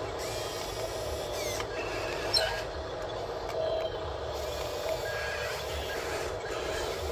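Small electric motors and plastic gearboxes of RC construction models whining as a crawler bulldozer and wheel loader drive over dirt, with a few short squeaks and a sharp click about two and a half seconds in.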